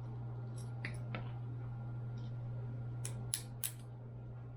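Metal helmet quick-release buckle clicking as it is latched and released by hand: two sharp metallic clicks about a second in, then three more in quick succession around three seconds in. A steady low hum runs underneath.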